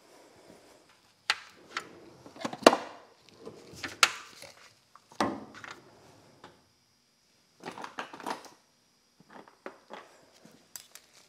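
Metal hand tools clinking and clattering in short, scattered knocks, then a steel tool chest drawer pulled open on its slides and tools handled inside it.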